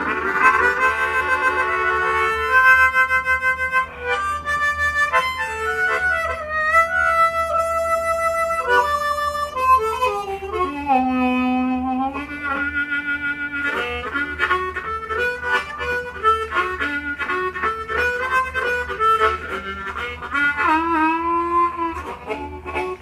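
Diatonic blues harmonica in G playing a solo blues melody, with held notes and bent notes that slide down in pitch.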